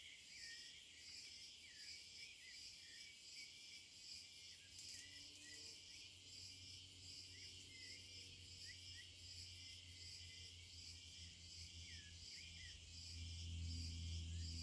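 Faint insect chorus: a high, pulsing chirring that repeats about once a second, with short high chirps scattered over it. A low hum grows louder near the end.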